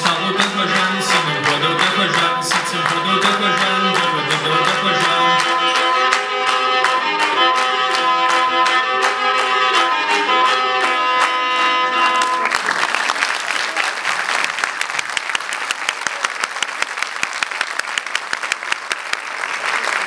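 Shichepshin, the Circassian two-string bowed fiddle, playing a tune over a steady beat of about three to four clicks a second. The music stops about twelve seconds in and audience applause follows.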